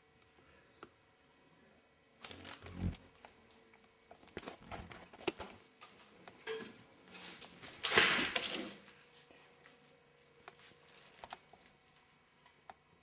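A cat scuffling and pawing after a moth against slatted window blinds: three bouts of rustling, clattering and scraping, the loudest about eight seconds in.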